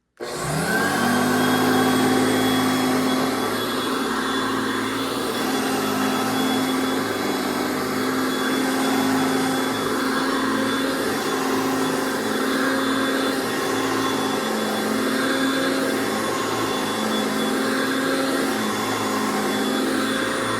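1981 Hoover Concept One U4205 upright vacuum cleaner switched on: its motor spins up over about a second, then runs steadily with a faint high whine above the hum.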